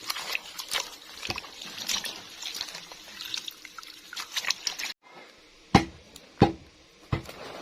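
Water splashing and trickling for about five seconds, then it cuts off abruptly and three sharp knocks follow, about two-thirds of a second apart.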